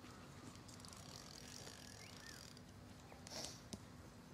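Spinning reel on a feeder rod being wound in, a faint whir with a few light clicks from its mechanism, and a brief louder scrape about three and a half seconds in.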